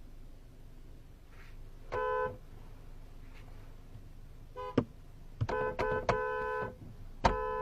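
Horn honking in repeated blasts: a short honk about two seconds in, a quick run of honks around six seconds, then a long steady blast near the end, with a sharp click in between.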